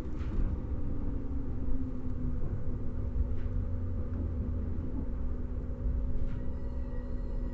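Interior running sound of a JR 115 series EMU motor car under way: a steady low rumble with the hum of its MT54 traction motors, the hum's pitch easing down slightly in the first couple of seconds and then holding steady. A few faint knocks about three seconds apart.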